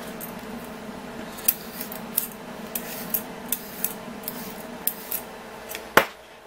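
Stainless steel julienne peeler being stroked quickly down a green vegetable, each pass ending in a sharp metallic click, about two a second, over a faint steady hum. Near the end the peeler is set down on a plastic cutting board with a louder clack.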